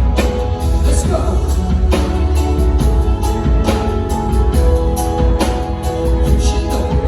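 Music with singing over a steady beat and strong bass.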